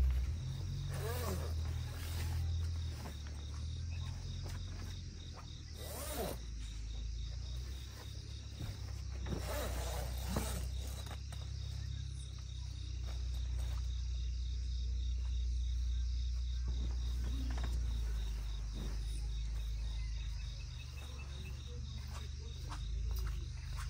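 Crickets and other insects chirping steadily in the night grass, over a low steady rumble. Now and then there are short rustles and knocks of nylon mesh and poles as the awning side walls are handled, loudest about a second, six seconds and ten seconds in.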